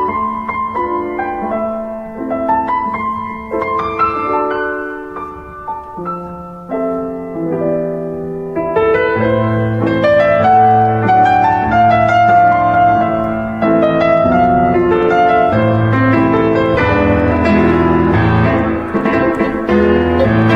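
Solo piano music, a slow melody of single notes over chords that grows fuller and louder about nine seconds in, with deep bass notes added.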